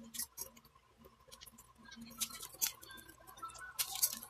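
Slices of luncheon meat frying in hot oil in a stainless steel pan: quiet, irregular crackling and spitting, with louder clusters of crackles about two seconds in and again near the end.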